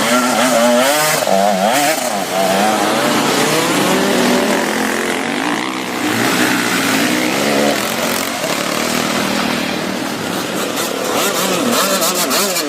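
Motorcycle engine running, its pitch rising and falling over and over as the revs change.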